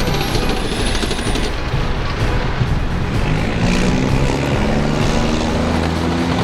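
Tracked armoured vehicles moving on a paved road: dense track clatter with a faint, slowly falling high whine for about the first second and a half, then the steady diesel note of a Type 99 155 mm self-propelled howitzer, growing stronger from about halfway as it passes close by.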